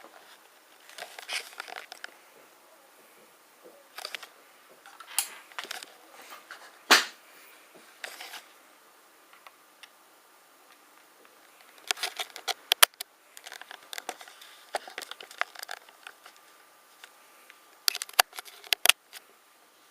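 Hand-handling noises of small hard objects: scattered clicks, taps and scrapes in bunches with quiet gaps between them. There is a louder knock about seven seconds in and quick runs of sharp clicks near the middle and near the end.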